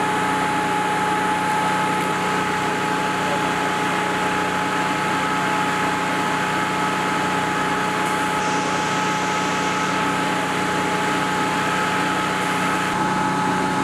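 Engine running steadily at idle, with two constant whining tones above its low hum.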